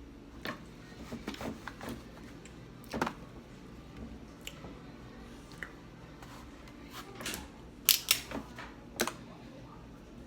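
Crab shells cracking and snapping as they are broken open by hand, in scattered sharp clicks, with the loudest snaps coming in a quick cluster near the end.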